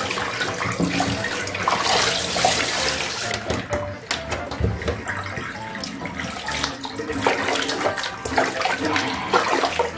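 Bath water splashing and sloshing in a plastic tub as hands scoop and pour it over a small dog's wet coat, with many small splashes throughout.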